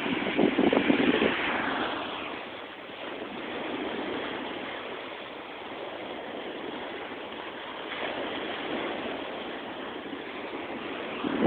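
Small waves breaking and washing up on a sandy beach, a steady rush of surf that swells and ebbs slowly. Rough gusty noise on the microphone in the first second or so is the loudest part.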